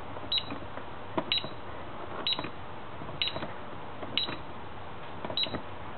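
DSC Power Series alarm keypad: six number keys pressed about once a second, each press giving a faint click and a short beep, as the six-digit date is keyed in.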